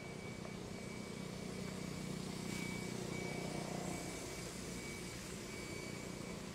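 Steady low background hum with a thin, faint high tone held above it that fades out near the end.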